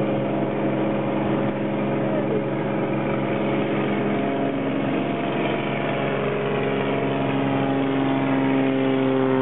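Engine running with a steady drone; in the last few seconds a second set of tones slowly rises in pitch.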